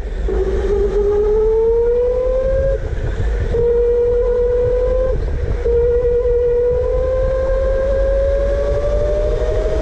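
Electric indoor go-kart's motor whining at speed, its pitch climbing as the kart gathers speed, breaking off briefly twice and rising again, over a steady low rumble.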